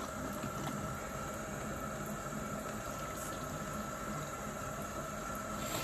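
Bathroom sink tap running in a steady stream.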